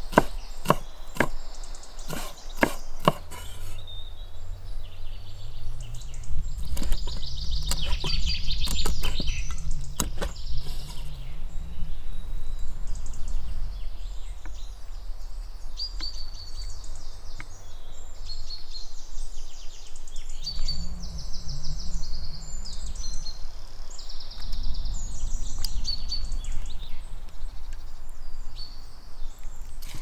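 A knife chopping garlic on a wooden cutting board, a run of quick strokes in the first few seconds, with a few more around a third of the way in. Small birds chirp throughout over a low rumble.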